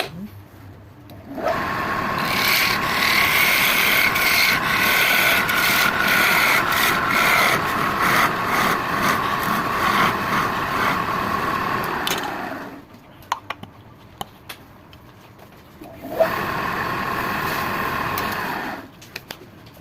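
A tool rasping against wood in two long passes, the first about eleven seconds and the second about three, each with a steady whine under the noise.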